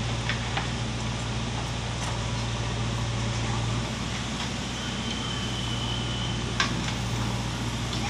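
JCB 3DX backhoe loader's diesel engine running steadily as the backhoe arm swings, a low even hum. A single sharp click about six and a half seconds in.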